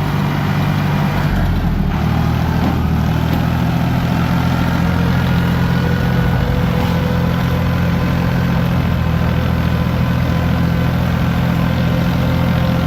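Ford 445D diesel tractor engine running steadily under a light tow load, with a small shift in engine speed about a second and a half in.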